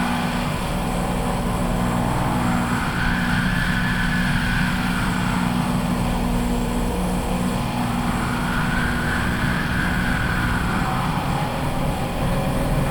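Harsh noise: a loud, dense wall of electronically mangled noise over a steady low hum, with a higher hissing band that swells and fades about every five seconds.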